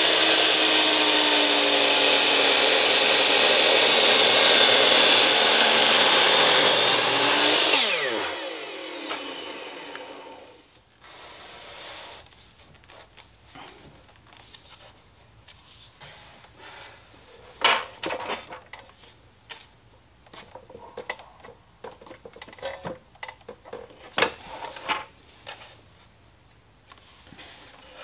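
DeWalt 12-inch miter saw with an 84-tooth blade running loud with a high, many-toned whine as it cuts into a roll of vinyl wrap. It is switched off about seven to eight seconds in and winds down, the pitch falling over a couple of seconds. Then come faint scattered knocks and rubbing as the vinyl roll is turned by hand against the saw.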